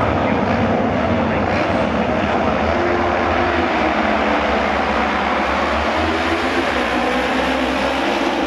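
Engines of a field of auto race motorcycles, 600 cc twin-cylinder racing bikes, running hard as the riders launch from the handicap start and accelerate away down the straight. A dense, steady engine noise with no let-up.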